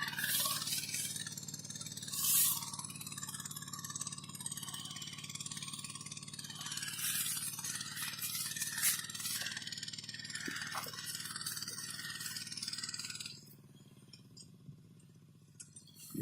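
A milling cutter running and cutting: a steady motor hum under a scraping hiss of material being cut, with a few louder bursts. About thirteen seconds in the cutting noise drops away sharply to a faint level.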